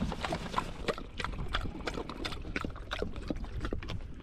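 Doberman lapping water from a plastic bottle held to its mouth: a quick, irregular run of wet clicks and slurps.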